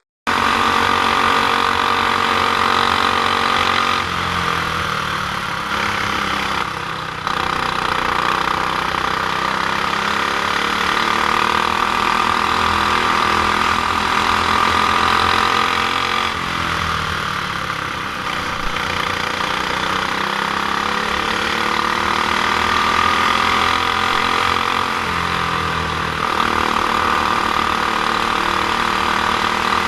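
Honda GX390 single-cylinder four-stroke kart engine running hard. Its pitch dips and climbs back up several times as the throttle comes off and goes back on.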